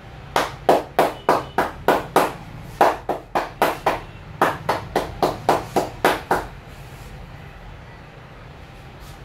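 A barber's hands slapping in quick rhythmic strokes during an Indian head massage, about three a second in three runs with short pauses, stopping a little past halfway.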